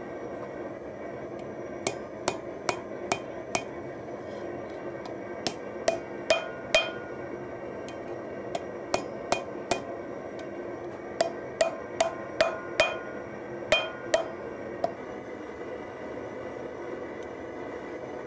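A hand hammer strikes a hot leaf-spring steel knife blank on an anvil in five quick bursts of three to five blows, each blow a sharp hit with a brief ring. A steady rushing noise runs underneath.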